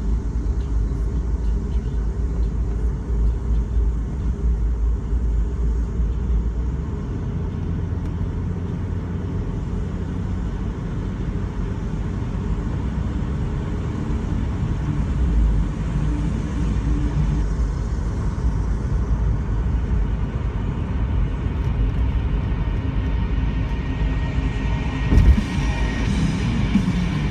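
A car driving at speed: steady low engine and road rumble. Music plays alongside and grows louder in the last few seconds.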